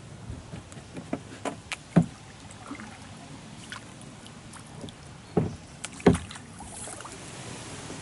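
Paddling in a plastic kayak: a series of sharp knocks and bumps from the paddle against the hull, the loudest about two seconds in and a pair just after five and six seconds in, over a low hiss of water.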